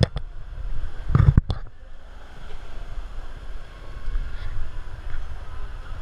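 Low rumble of wind and handling noise on a camera carried at a walk, over the background noise of a shopping mall. A short loud burst comes about a second in.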